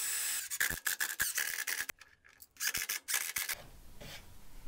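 Cordless drill-driver driving screws into a wooden handle: the motor runs briefly at the start, then come quick runs of clicks and squeaks as the screws bite into the wood. They break off for a moment about two seconds in and start again.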